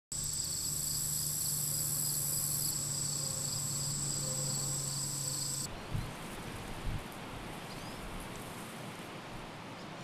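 Insects trilling in a field: a steady high-pitched trill with a pulsing lower chirp and a low hum beneath. A little over halfway it cuts off abruptly, and a steady outdoor hiss follows with two low thumps about a second apart.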